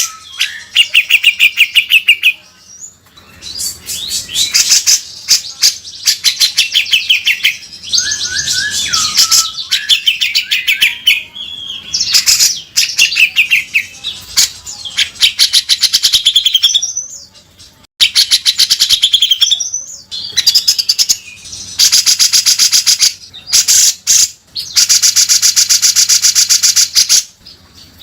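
Grey-cheeked bulbul (cucak jenggot) singing hard in bursts of harsh, very rapid rattling chatter ('beset kasar'), mixed with short whistled phrases, with brief pauses between bursts.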